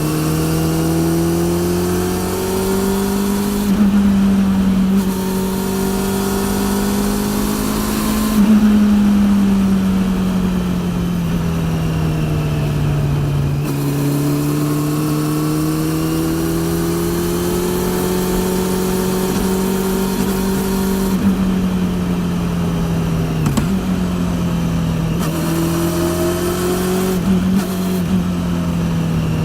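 Honda CB400 Super Four (NC42) inline-four through a TSR E02 slip-on exhaust, heard from on board while riding, its revs swelling and easing back repeatedly as the throttle is worked. Under it runs a loud drive-chain noise, which the rider puts down to a chain due for replacement.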